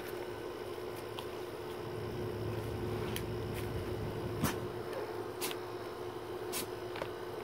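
A treat package being handled, with a few sharp clicks and soft crinkles over a steady low hum of room tone.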